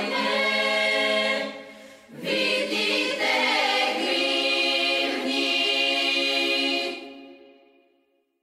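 Background music of a choir singing long held chords, with a brief break about two seconds in, fading out near the end.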